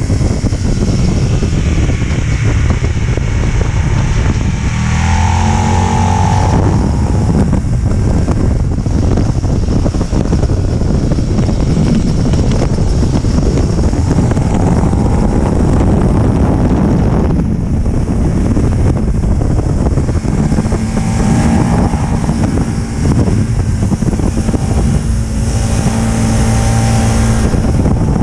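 Aprilia Tuono's V-twin engine running hard at road speed, heard from the rider's seat under heavy wind noise on the microphone. The revs climb about five seconds in and again near the end.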